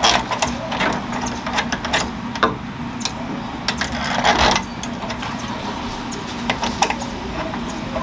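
Hand screwdriver driving screws into a fingerprint keypad deadbolt lock on a door: irregular small metallic clicks and scrapes over a steady low hum.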